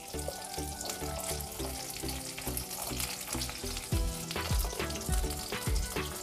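Onion and green capsicum pieces sizzling in a little hot oil in a kadai, stirred with a wooden spatula that scrapes and knocks against the pan several times in the second half. Soft background music plays underneath.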